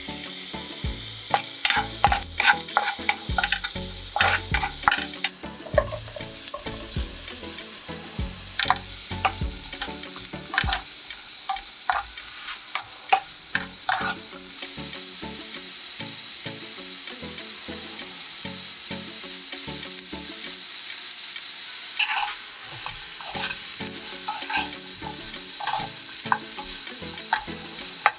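Garlic, onion and halved button mushrooms sizzling in oil in a non-stick frying pan, with a spatula stirring them and knocking and scraping against the pan. The knocks and scrapes come thick in the first half and again near the end, with a stretch of plain sizzling in between.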